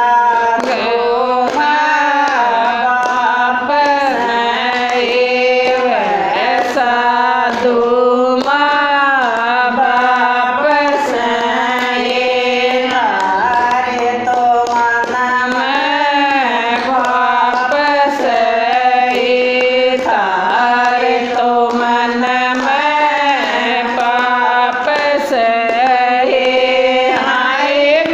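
A group of women singing a Haryanvi devotional bhajan, with hand claps keeping the beat.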